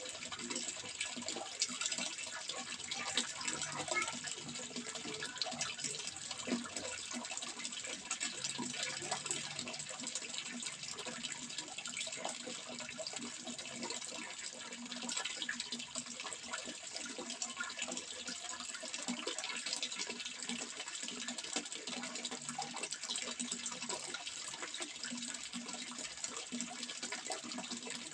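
Running water trickling and splashing steadily, a continuous stream of small splashes.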